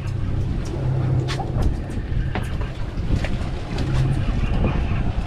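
Suzuki outboard motors idling with a steady low hum, under the rush of wind and water, with a few sharp clicks scattered through.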